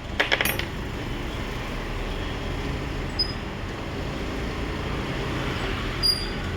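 A car engine running steadily with a low hum, with a few sharp metallic clicks just after the start.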